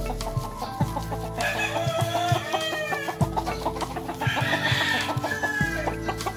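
Gamefowl roosters crowing twice, once about a second and a half in and again past the four-second mark, with chickens clucking in between.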